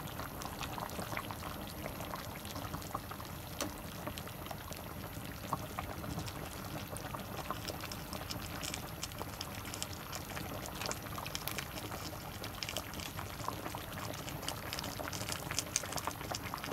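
Large pot of tuna-head broth boiling on the stove, a steady bubbling with many small scattered pops.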